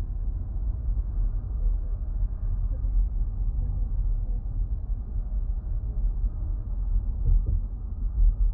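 Steady, muffled low rumble, with faint voices now and then.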